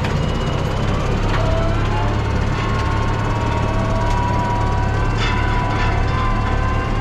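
Tractor running steadily while pulling a Hatzenbichler Vertikator tine harrow with seeder across a field, a constant engine hum with a faint steady whine above it.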